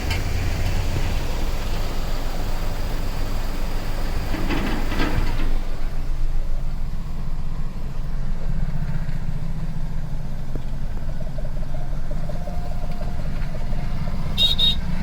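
Rushing floodwater with wind on the microphone for the first few seconds, giving way to a vehicle engine running at a steady idle. A few short high-pitched tones sound near the end.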